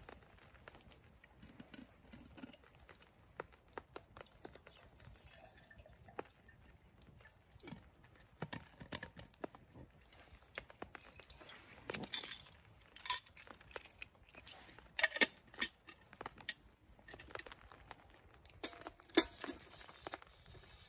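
Wood fire crackling in a small steel kindling stove, with scattered sharp clicks, and metal clinks as a steel flask and a camping kettle are handled. The loudest clinks come in short clusters about twelve, fifteen and nineteen seconds in, the last as the kettle is set on the stove's grate.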